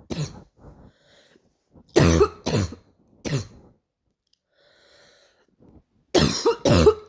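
A girl's short barking coughs, coming singly or in quick pairs every few seconds: one at the start, a pair about two seconds in, another single one, then a last pair near the end.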